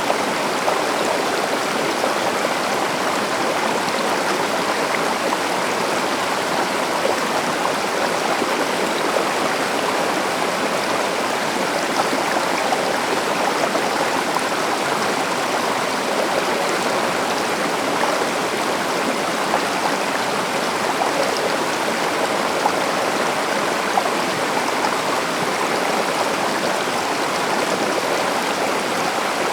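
A river or stream rushing steadily over rocks, a continuous even rush of moving water.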